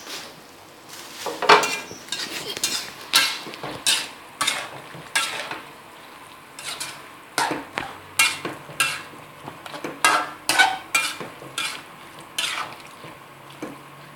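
A cooking utensil scraping and knocking against a wok in irregular strokes, one or two a second, over a faint sizzle of mushroom and meatball stir-fry cooking on a low gas flame.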